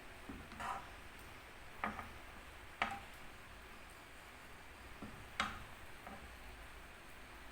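Four light knocks or clinks at irregular intervals, the second pair the loudest, over a faint steady hum.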